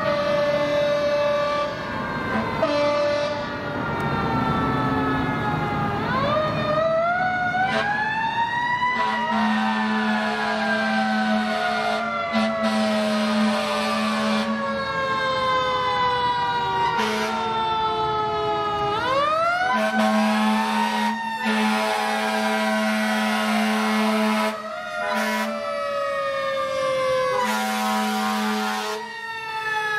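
Fire engine's mechanical siren winding up quickly and coasting slowly back down, twice, over three long blasts of a deep air horn.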